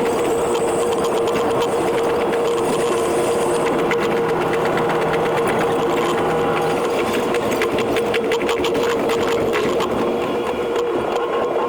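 Running noise of an E721 series electric train played back at ten times speed: a fast, sewing-machine-like clatter of wheels over rail joints over a steady hum.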